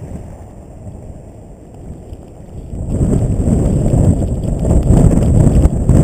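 Blizzard wind buffeting a GoPro HERO2's microphone: a rough low rumble, lighter for the first few seconds, then gusting up loud about three seconds in.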